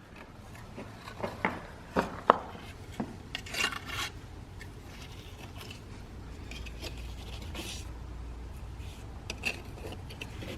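Bricklaying: brick and mortar being worked into a wall, with scrapes and sharp clicks and knocks, several in quick succession in the first four seconds and a few more near the end.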